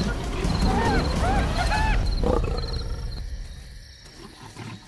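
A lioness growls deeply as she lunges at spotted hyenas. The hyenas answer with high cries that rise and fall, about one to two seconds in, and the commotion dies down after about three seconds.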